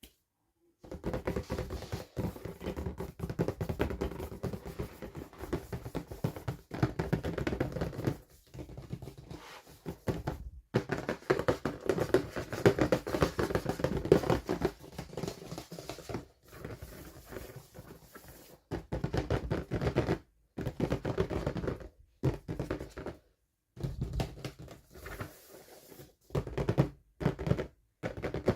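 Hands handling and unwrapping miniature doll packaging: dense scratching, crinkling and tapping. It comes in stretches that cut off abruptly into silence several times.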